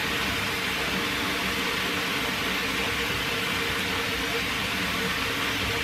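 Water running steadily from a bath shower head into the tub, an even hiss that does not change.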